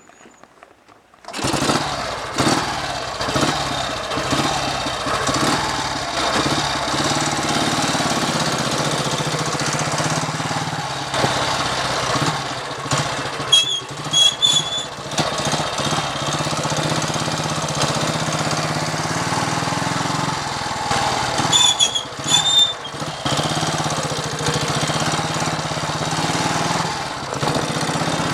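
1939 AJS 250 Model 22 single-cylinder engine, fitted with an Ariel 250 cylinder head, firing up about a second and a half in after two idle years, then running steadily. Twice it runs unevenly for a moment, with brief high chirps.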